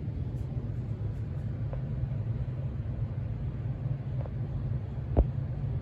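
Steady low rumble of an HVAC system running, loud enough to cover the ceiling fan turning slowly on its second speed. A single sharp click about five seconds in.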